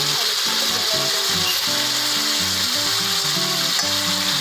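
Pork tenderloin strips searing in hot olive oil in a stainless steel frying pan: a steady, even sizzle.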